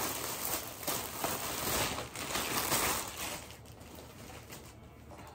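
Clear plastic packaging bag crinkling and rustling as a faux fur coat is pulled out of it. The rustling dies down about three and a half seconds in.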